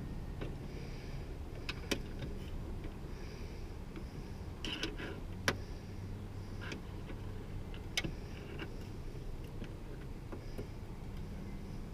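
A flathead screwdriver working a loose door-handle retaining clip inside a truck door: scattered sharp clicks, three louder ones, and brief scraping over a steady low hum.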